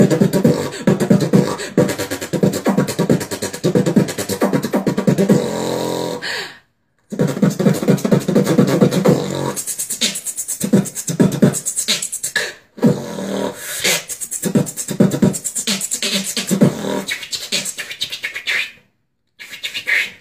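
Human beatboxing: a fast, dense run of mouth-made drum sounds, broken by a short pause about a third of the way in and another near the end.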